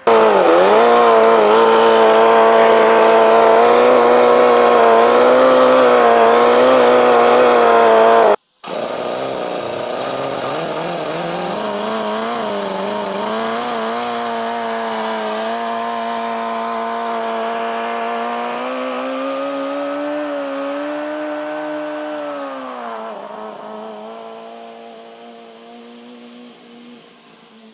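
Toyan FS-L400 four-cylinder four-stroke nitro model engine fitted to a moped, running fast and steady right after a mixture adjustment, with a brief dip in pitch just after the start. After an abrupt cut about eight seconds in, it runs on as the moped rides away, dipping in pitch and fading out over the last few seconds.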